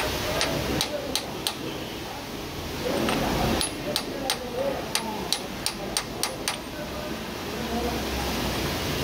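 Light, sharp metal taps at an irregular pace: a hammer striking a socket used as a drift to drive a new core plug into a Toyota 2H engine block. A faint voice murmurs underneath.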